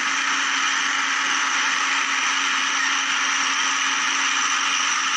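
Small electric motor and plastic gearbox of a remote-control toy excavator running continuously, a steady whir with a faint hum beneath, as the arm and cab are driven.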